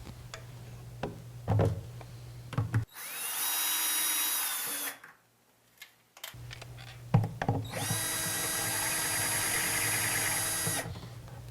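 Drill with a Vix self-centering bit pre-drilling screw holes for hinge mounting plates, in two runs of about two and three seconds. Each run spins up quickly and then holds a steady speed. There are a few short knocks of handling between the runs.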